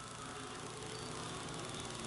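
USRA stock car V8 engines running around a dirt oval, heard at a distance and slowly growing louder as the field comes around.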